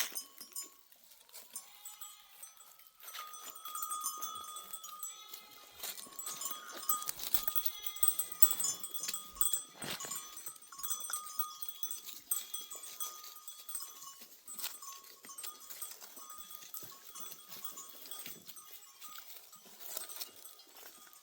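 A flock of sheep and goats bleating now and then over the steady ringing of the bells hung on the animals.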